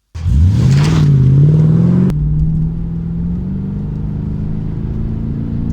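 Jaguar XK8's V8 engine starting: it catches and revs up high for about two seconds, then drops to a steady fast idle.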